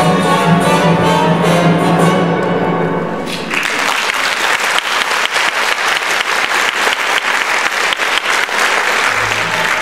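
Orchestral music that breaks off about three seconds in, followed by an audience applauding; the music starts again near the end.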